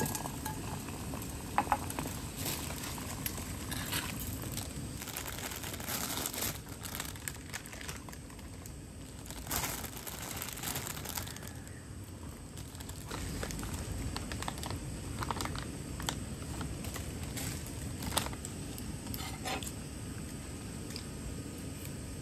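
Rustling and crinkling with scattered light clicks and knocks over a steady low background rumble.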